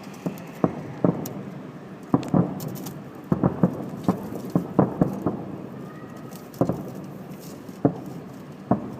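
Fireworks going off at a distance: a dozen or more irregularly spaced bangs and pops, some in quick clusters, each trailing a short echo.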